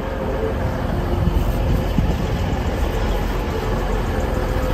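A train running steadily, a constant low rumble with a steady hum over it.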